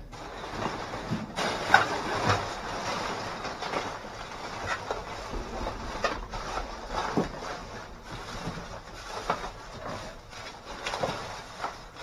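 Plastic trash bags rustling and crinkling as hands dig through them, with occasional small knocks from handled boxes and cases.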